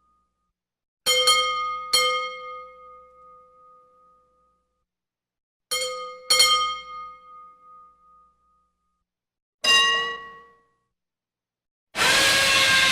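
Metal being struck five times, in two pairs and then a single blow, each strike ringing out with a bell-like tone. Near the end a loud steady noise starts abruptly.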